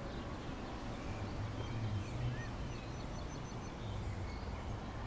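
Outdoor background noise: a steady low rumble with a few faint, short high bird chirps near the middle.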